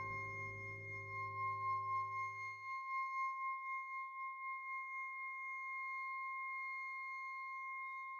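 A steady, high ringing tone, two pure pitches held without a break, sounds over a low musical drone with a few held notes. The drone stops about three seconds in, leaving only the ringing.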